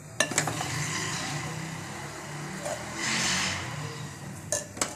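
A metal spoon knocking and scraping against an aluminium pot while scooping shredded chicken, with sharp clicks shortly after the start and twice near the end. Under it runs a steady rushing noise that gets brighter for a moment about three seconds in.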